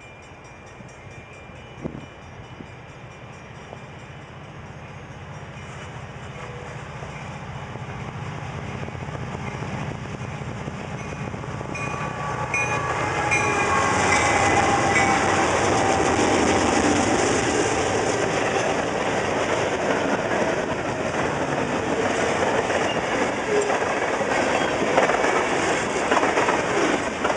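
A CN freight train's diesel-electric locomotives approaching and passing close, faint at first and growing steadily louder to a peak about halfway through as the engines go by. The loud rumble and clatter of the train rolling past on the rails carries on after them.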